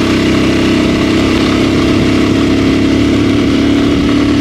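A vehicle's engine running steadily while driving, its pitch holding level, with road noise.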